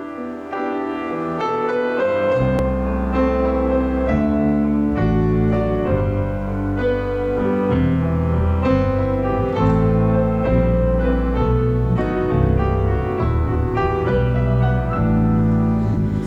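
Instrumental song intro on piano or keyboard, with a steady deep bass line coming in about two seconds in.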